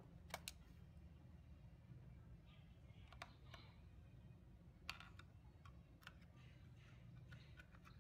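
Faint handling noise: a few scattered clicks and taps of a small plastic remote-control receiver box being turned over in the hands, over a low steady hum.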